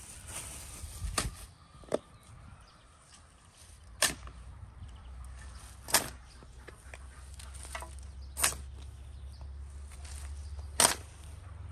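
A series of sharp knocks, five loud ones about two to two and a half seconds apart with a smaller one near the start, like something being struck or chopped.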